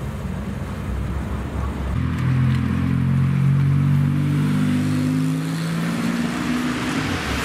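Porsche 997 GT2 RS's twin-turbo 3.6-litre flat-six, with a Techart exhaust, running low and rough at first. About two seconds in it pulls away at low revs, its note rising gently and then fading as the car drives off.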